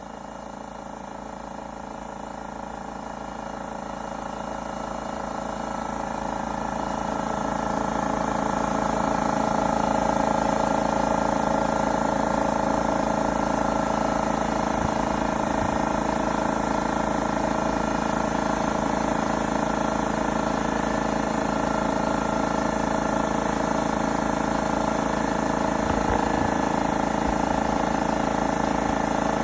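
Husky air compressor's electric motor and pump running under load, refilling the tank after restarting at about 100 psi. It grows louder over the first ten seconds, then runs steadily.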